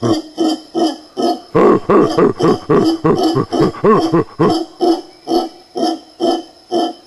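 Mantled howler monkeys roaring: a loud, rhythmic run of deep grunting calls, about three to four a second, coming closest together near the middle. A faint steady high-pitched tone runs behind them.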